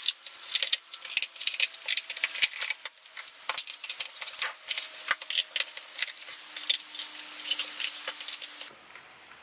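A small screwdriver working the screws out of the MacBook's bottom case: rapid, irregular metallic clicking and rattling that stops abruptly near the end.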